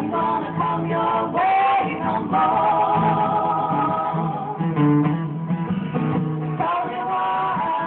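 Live music: three women's voices singing in harmony over two strummed acoustic guitars, with long notes held with vibrato in the middle.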